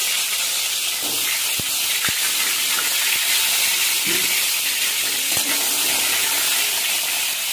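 Whole pointed gourds (potol) sizzling in hot mustard oil in a kadai: a steady hiss of frying, with a few light knocks as more gourds go into the pan and a spatula turns them.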